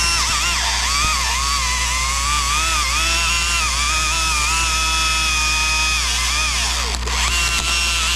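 Chainsaw running under load while cutting through a trunk, its engine pitch sagging and recovering as the chain bites, then dropping sharply about seven seconds in and climbing back up.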